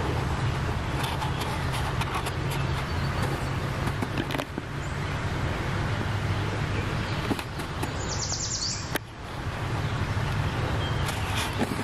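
Steady low outdoor rumble with scattered faint clicks. About eight seconds in, a bird sings one short rapid trill of high notes, and faint bird calls follow near the end.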